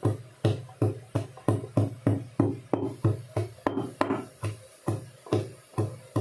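Wooden pestle pounding garlic in a steel pot: steady dull thuds with a faint metallic ring, about three strikes a second.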